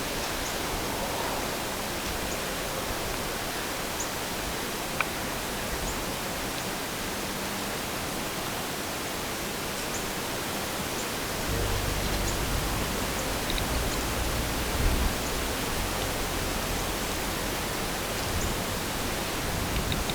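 Steady, even hiss of outdoor air noise. About halfway through, a low rumble of wind buffeting the microphone starts and carries on, with one faint click early on.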